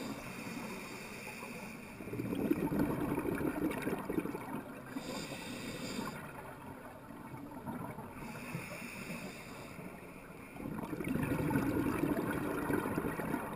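Scuba regulator breathing, heard underwater: short hissing inhales alternating with longer rumbles of exhaled bubbles, two full breaths.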